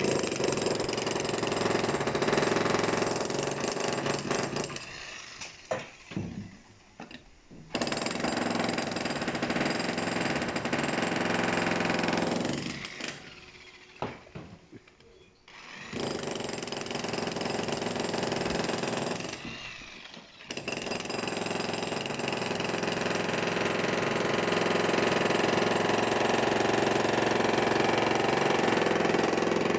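Dongcheng electric demolition hammer chiselling into a hard concrete slab, hammering in four long runs with three short pauses between them.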